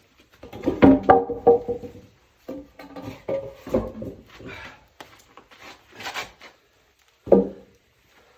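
Irregular wooden knocks and clunks of firewood logs being handled and dropped against each other, loudest about a second in and again near the end. No chainsaw is running.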